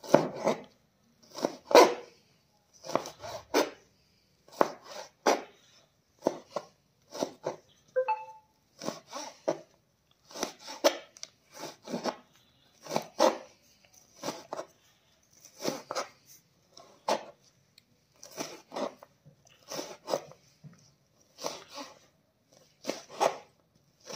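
Large kitchen knife chopping goat fat finely on a plastic cutting board: a steady run of short knocks, about one or two a second, sometimes in quick pairs.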